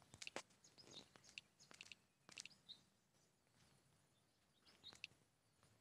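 Near silence: quiet room tone with a few faint, short ticks, scattered through the first couple of seconds and again near the end.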